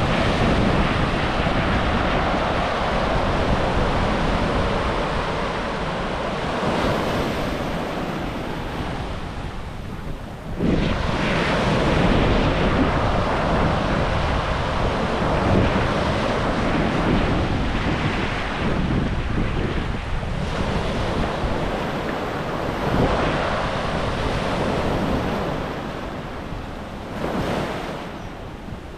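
Small waves breaking and washing up over a rocky beach close by, the wash swelling and ebbing in surges, with a brief lull and then a sudden louder surge about ten seconds in.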